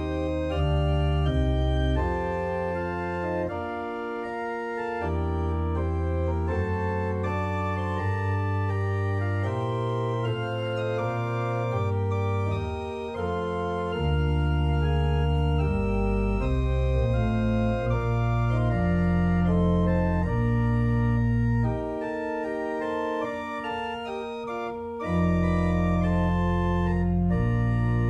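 Pipe organ playing a slow piece in held chords over pedal bass notes that change every second or two; the bass drops out twice for a few seconds, leaving only the softer upper parts.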